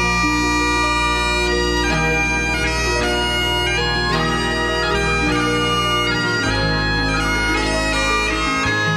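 Bagpipe music: a melody of changing notes played over steady low drones.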